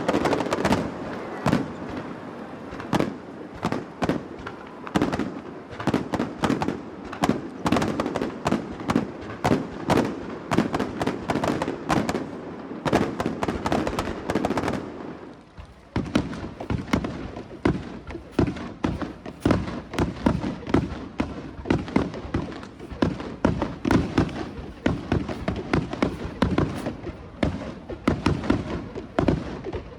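Aerial fireworks show: a rapid, continuous string of bangs and bursts, several a second, easing briefly about halfway through before carrying on.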